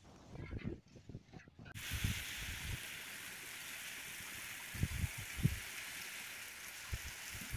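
Steady hiss of heavy rain falling on a brick-paved lane, starting abruptly about two seconds in. Before it, faint low rumbling, and a few low thumps in the middle.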